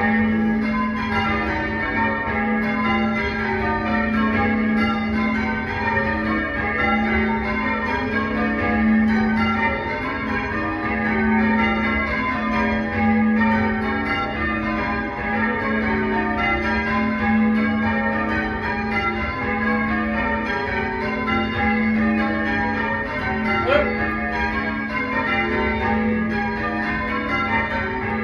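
Tower bells rung in changes (English change ringing): a continuous, even stream of bell strikes with the notes overlapping.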